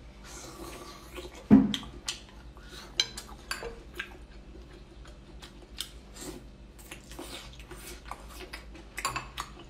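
Close-up eating and handling sounds: scattered small clicks and smacks as cooked shellfish claws are worked off a metal skewer and eaten, with one louder knock about one and a half seconds in.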